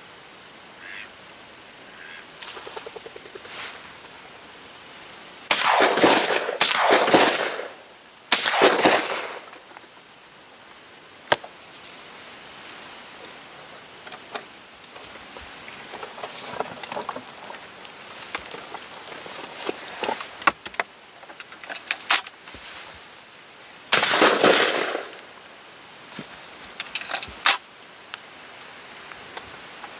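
12-gauge semi-automatic shotgun (Winchester SX3) fired three times in quick succession at ducks a few seconds in, each report ringing out, then once more near the end, with fainter distant shotgun cracks from other guns in between.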